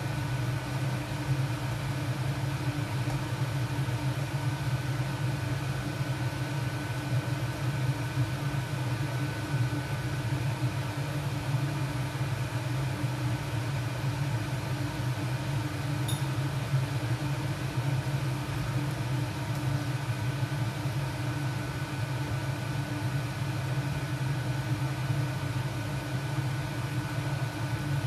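Steady motor hum with a faint high whine.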